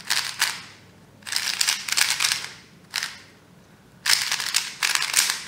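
Qiyi MS 3x3 magnetic speed cube turned fast by hand: quick runs of plastic clicking and clacking in several spurts with short pauses between. It is new out of the box, turning fast with a slightly tight feel.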